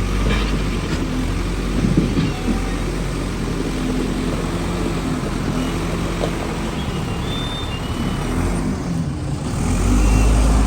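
Backhoe's diesel engine running under varying load, with a few sharp knocks about two seconds in; it grows louder near the end.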